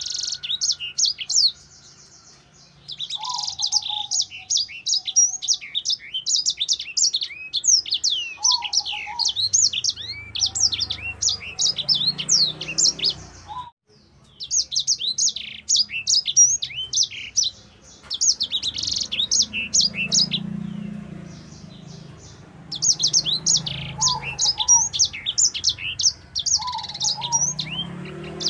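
A caged sanger (grey singing finch) singing a long, fast, high-pitched song of rapid chirps and trills, delivered in phrases of several seconds broken by short pauses.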